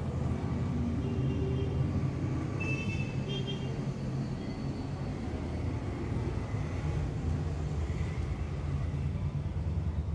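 Steady rush of water from a salon backwash sink's handheld shower sprayer rinsing wet hair, over a low rumble.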